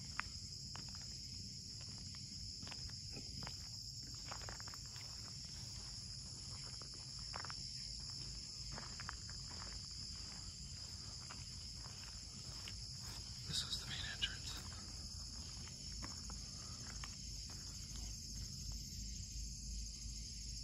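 Steady chorus of crickets or similar insects, with scattered soft clicks and knocks. About two-thirds of the way in there is a brief cluster of high, falling chirps.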